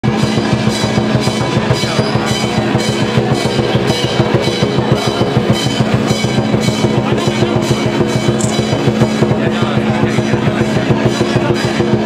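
Loud, fast drumming at a steady beat, Chinese temple festival percussion, with a steady low tone sounding beneath it.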